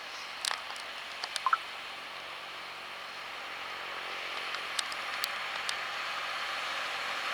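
John Deere 6195R tractor working with its plough, heard as a steady rushing noise with a faint low engine note that slowly grows louder. A few sharp clicks come in the first two seconds and lighter ticks around five seconds in.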